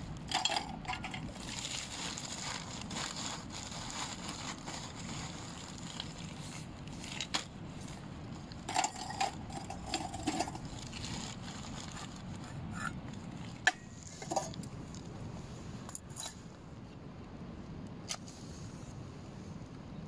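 Lumps of lump charcoal being set by hand into a metal mesh charcoal basket, with scattered light clinks, knocks and scrapes of charcoal on charcoal and metal, over a steady background rush of flowing river water.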